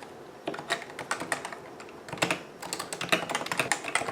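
Fast typing on a Cooler Master CM Storm Novatouch TKL keyboard with Topre-style hybrid capacitive switches: quick runs of key presses, with a short pause about two seconds in.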